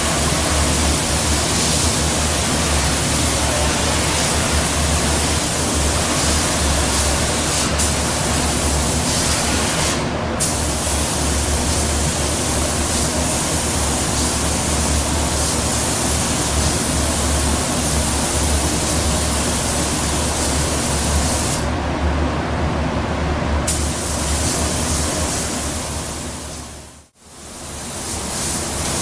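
Compressed-air spray gun with a gravity-feed cup hissing steadily as clear coat is sprayed onto a car fender, over a steady low hum. The hiss thins briefly about ten seconds in and again for about two seconds past twenty seconds in, and the sound fades out and back in near the end.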